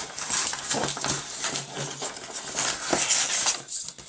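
Cardboard and paper packaging rustling and scraping as a headphone box is slid out of its sleeve and opened, with many small scrapes and taps.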